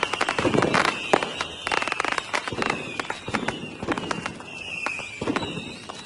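Fireworks going off in quick succession: a dense run of sharp pops and bangs, over a high-pitched whine that sinks slowly in pitch.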